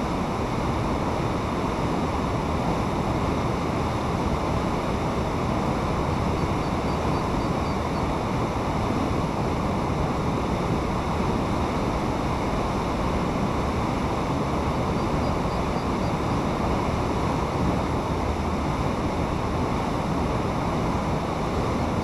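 Steady rush of fast-flowing water churning through a channel.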